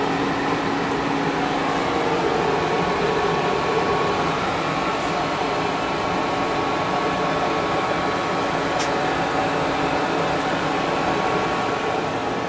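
Steady running hum of the KSI SQC-38 CNC Swiss lathe while its sub-spindle slide is jogged along the Z2 axis. The ball-screw slide itself is very quiet. A low steady tone stops about two seconds in and a thin higher whine comes in and holds. Slides this quiet are taken as a sign that the ball screws are in good condition.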